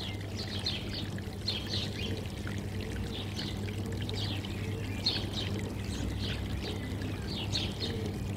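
Steady running, pouring water with small birds chirping repeatedly over it, and a low steady hum underneath.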